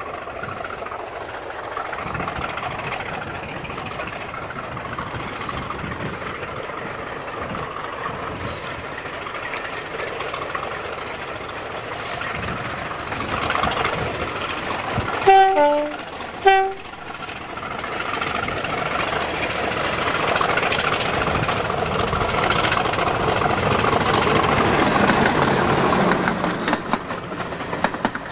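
British heritage diesel-electric locomotive hauling passenger coaches, its engine growing louder as it approaches and passes. About 15 seconds in it sounds its two-tone horn, a high note then a low note, followed a second later by a short high note. Near the end the coaches run past close by.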